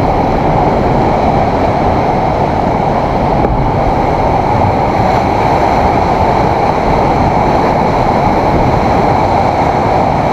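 Steady, unbroken roar of heavy surf with wind at the shore.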